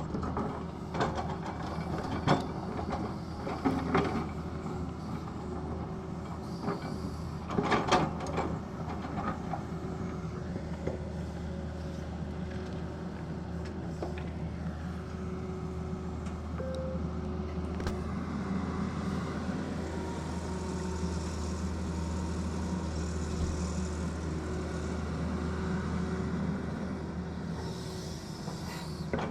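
Tata Hitachi excavator's diesel engine running steadily, with sharp metallic clanks and knocks in roughly the first ten seconds, the loudest about eight seconds in.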